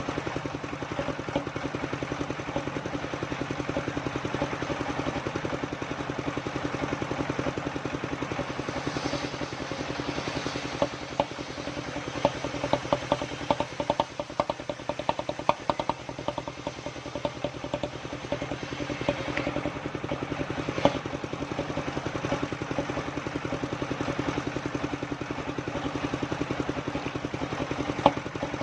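Engine of a homemade circular-saw sawmill running steadily at constant speed, with a run of quick clattering knocks in the middle and a couple of single louder knocks later.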